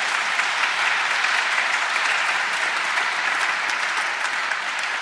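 Congregation applauding steadily: many hands clapping together in a dense, even patter.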